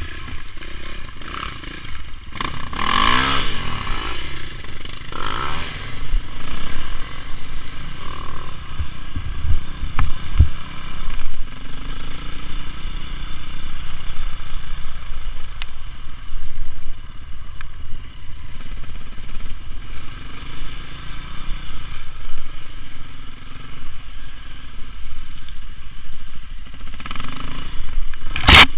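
KTM off-road motorcycle engine revving up and down as it is ridden over a rough forest trail, with clattering and scraping from the bike over bumps. A sharp knock comes near the end.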